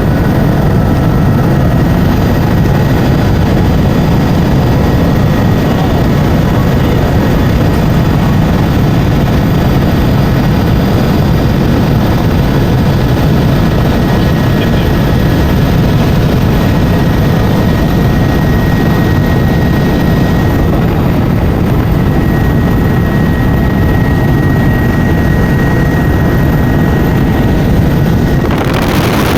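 Helicopter rotor and engine running: a loud, steady, deep drone with a faint high whine above it. The sound shifts abruptly about a second before the end.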